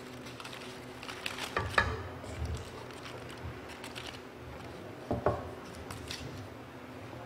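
Mealtime handling sounds: aluminium foil crinkling as it is peeled open from rolls of gimbap, and chopsticks and bowls clicking and knocking on a wooden table, heard as a few separate light knocks.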